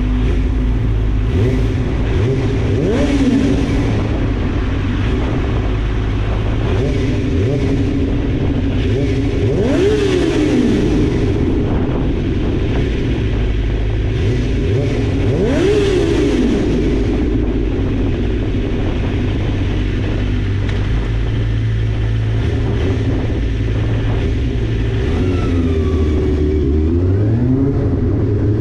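Small sport motorcycle engine running steadily, with the throttle blipped so the revs rise and fall sharply about three times, and once more, more slowly, near the end.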